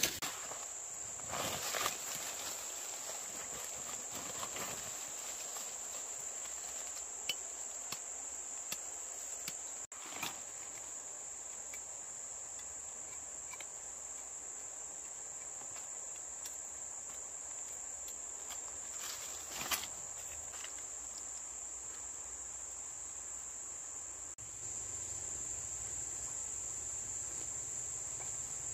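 Steady high-pitched chorus of insects, a little louder near the end, with a few brief rustles and scrapes of hands working dry leaves and soil.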